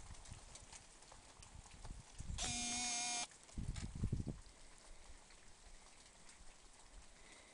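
Faint steady patter of wet, large-flaked snow falling on trees and leaves. About two and a half seconds in, a loud, steady-pitched tone sounds for under a second, then a few low thumps follow.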